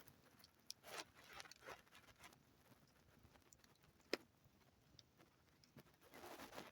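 Near silence, broken by a few faint, sharp clicks (the clearest about four seconds in) and a short soft rustle near the end.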